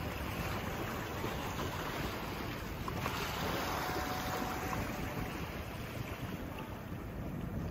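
Wind buffeting the microphone over a steady wash of water at the shoreline.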